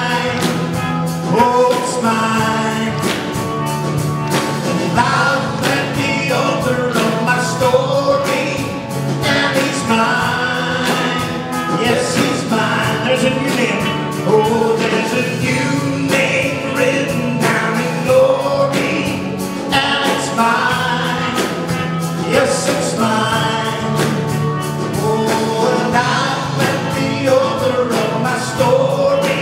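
A man singing a gospel song while playing electric guitar.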